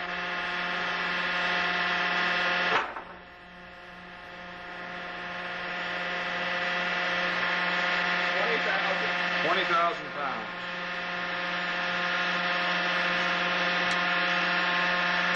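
Steady hum with many overtones from a horizontal sling test bed pulling a knotted synthetic sling under rising load. A short knock comes about three seconds in, after which the level drops and slowly builds back up.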